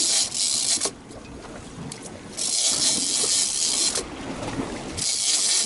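Big-game fishing reel being cranked against a heavy fish, the line hissing in three bursts of about a second or more each, with short pauses between.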